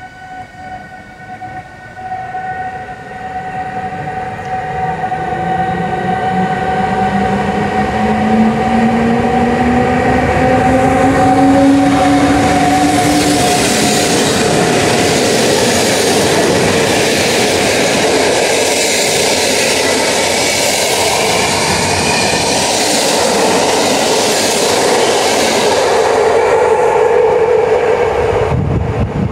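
An electric locomotive hauling a passenger train pulls past, its traction motors giving a whine that climbs steadily in pitch as it gathers speed. Then the coaches roll by with a loud, steady rush and a regular clatter of wheels over the rail joints.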